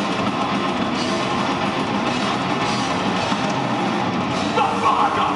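Live heavy metal band playing loudly: electric guitars over a drum kit.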